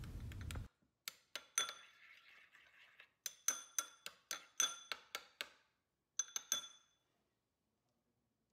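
Metal spoon clinking against a ceramic bowl while stirring soaked chia seeds. About a dozen short, ringing clinks come in uneven bursts, starting about a second in and stopping a couple of seconds before the end.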